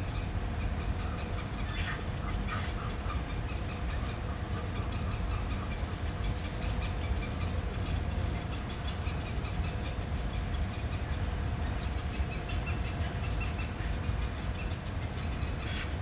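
A steady low outdoor rumble with a faint even hum over it, and a few faint short high chirps.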